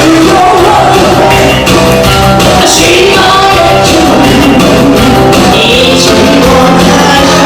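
Upbeat twist-style Korean pop song playing loudly, with a singer's voice over a steady drum beat.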